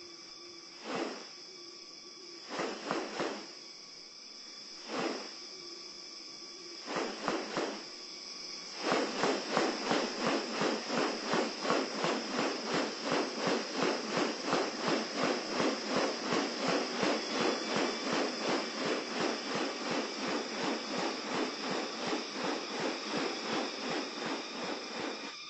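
Rainforest insects keeping up a steady high drone. Over it come short harsh sounds: first one, then a group of three, then one, then three more, and from about a third of the way in a fast regular run of about three a second that slowly fades.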